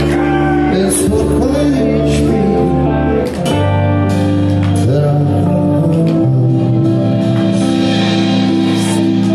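Live electric blues-rock band playing loudly: overdriven electric guitars, bass and drums, with a harmonica played into the vocal microphone over held chords.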